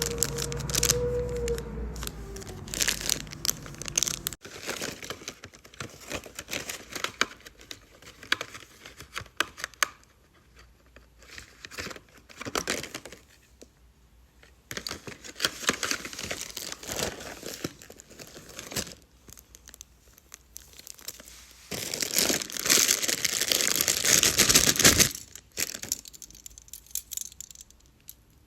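Packaging being crinkled and torn open by hand, in irregular rustling bursts with short quiet pauses. The loudest, densest stretch of crinkling comes about three-quarters of the way through.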